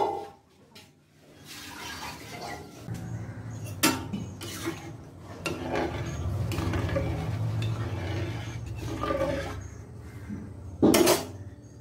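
A metal ladle stirring thick sambar dal in a metal pan: the liquid sloshes and the ladle scrapes. It clanks against the pan about four seconds in, and a louder clank comes near the end.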